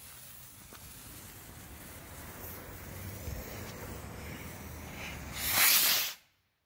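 Fuse of a Dominator X-Force firework rocket hissing steadily and slowly growing louder for about five seconds, then the rocket launching with a loud rushing whoosh near the end that cuts off suddenly.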